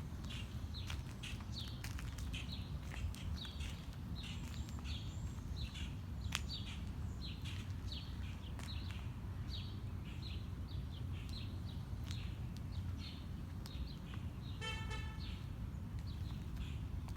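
A bird calls over and over with short falling chirps, about two a second, over a steady low rumble. About fifteen seconds in, a vehicle horn honks once, briefly.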